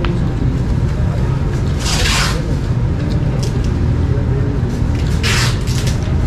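Restaurant room noise: a steady low hum with faint background voices, and two short hissing sounds, about two seconds in and again about five and a half seconds in.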